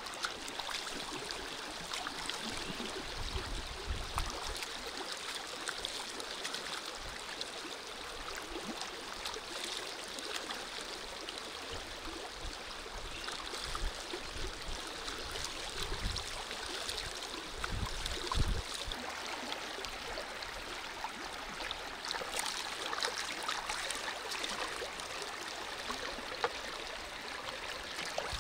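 Shallow river running fast over stones, a steady rushing and gurgling, with small splashes as tomatoes are rinsed by hand in the current. A few dull low thumps stand out, the strongest about two-thirds of the way through.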